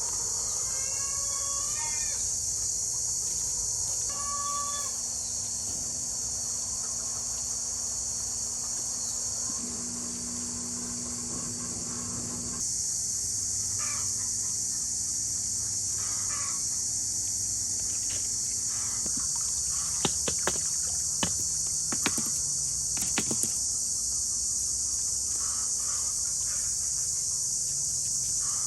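Steady, high-pitched chorus of crickets, with a rooster crowing near the start and a shorter chicken call a few seconds later. A cluster of sharp clicks or taps comes about two-thirds of the way through.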